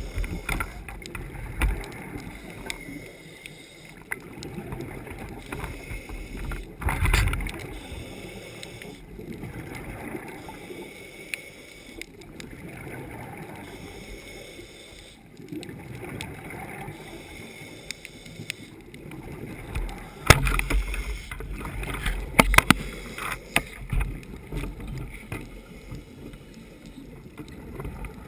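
Muffled underwater noise through a diving camera's housing, with the rumbling bubble bursts of a scuba diver breathing out now and then. There are a few sharp knocks past the middle.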